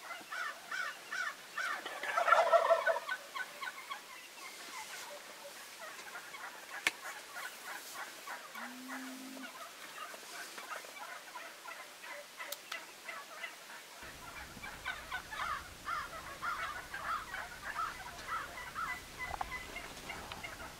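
Wild turkeys calling, many birds at once: a loud gobble about two seconds in, over constant rapid calling from the flock.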